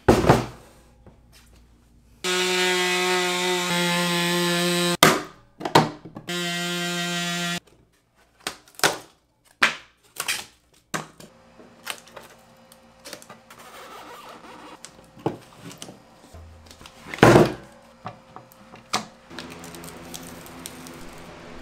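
A power tool runs at a steady pitch in two bursts, about three seconds and then about a second long, cutting open a plastic battery case. Then irregular clicks, knocks and thuds of the opened case and the taped cell pack being handled, with one sharp knock late on, and a low steady hum near the end.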